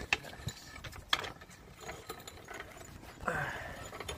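Faint scattered mechanical clicks and knocks, the sharpest about a second in.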